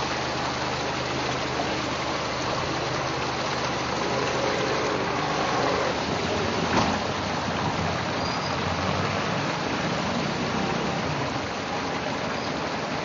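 Floodwater running steadily along a flooded street and over a broken roadside drain, with motor traffic running in the background. A single brief knock about seven seconds in.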